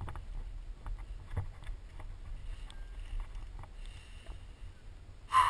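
Scrapes and knocks of hands and gear on granite as a climber moves along the rock, over a low steady wind rumble on the camera microphone. A short, loud sound comes just before the end.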